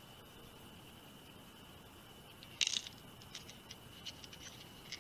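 Small M3 screw and plastic battery holder being handled while the screw is fitted into its hole: a brief clatter of small metal-and-plastic clicks just past halfway, then a few light ticks.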